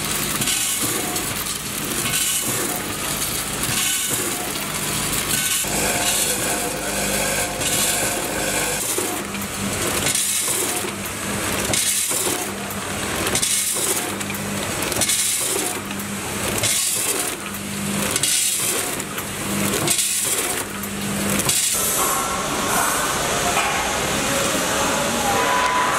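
Vertical packing machine running, filling and sealing bags of seeds. It repeats a cycle about once a second, with a hiss each cycle over a steady hum.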